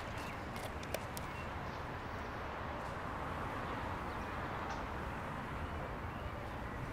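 Steady outdoor city background noise, a constant even hiss and rumble, with a few small clicks about a second in.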